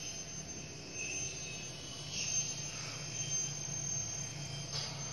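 A steady, high-pitched mechanical whine over a low hum, starting and stopping abruptly.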